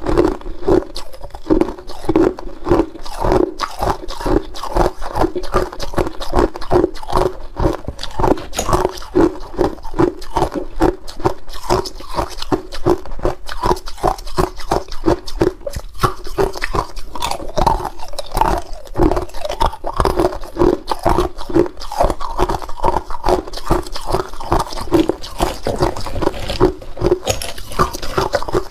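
Hard clear ice cubes crunched and chewed between the teeth, close up: a continuous run of sharp cracks and crunches, several a second.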